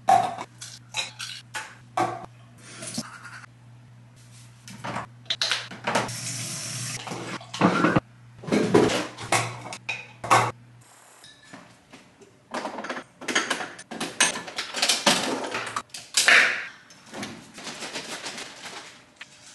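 Household clatter of things being handled at a bathroom sink, with short knocks and clicks and a tap running briefly, over a steady low hum that stops about halfway. Then more knocks and clinks as a mug and other items are handled at a kitchen coffee maker.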